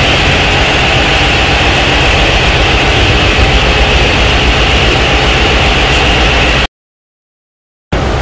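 Ship's engine-room machinery running: a loud, steady mechanical drone with a deep rumble and a hiss high up. It cuts to dead silence for about a second near the end, then resumes.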